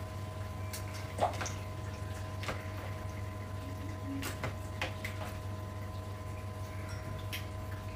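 Light kitchen sounds during cooking: scattered soft clicks and taps and faint liquid sounds over a steady low hum.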